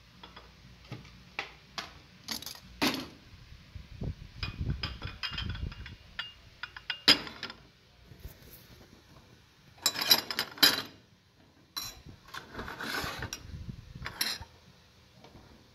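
Dishes and kitchenware being handled beside a gas stove: a string of clicks, knocks and clinks as a plate and a glass bowl are set down, with two longer scraping sounds about two-thirds of the way in.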